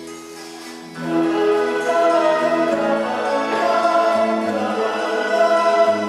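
Choir singing: after soft held notes, the massed voices come in loudly about a second in and carry on in sustained chords.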